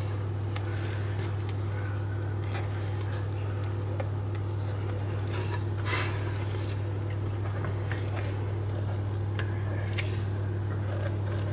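Spatula stirring thick brownie batter in a glass bowl: soft scraping with occasional light taps against the glass, over a steady low hum.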